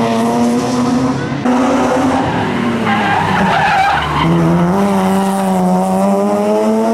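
BMW M3 E36 rally car's straight-six engine running hard at high revs, with its tyres squealing in a slide about three seconds in. A little past four seconds it drops pitch at a gear change, then the revs climb steadily as it accelerates away.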